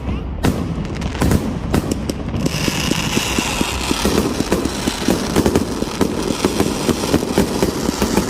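Fireworks crackling with many rapid small pops; about two and a half seconds in, a steady high hiss joins the crackling.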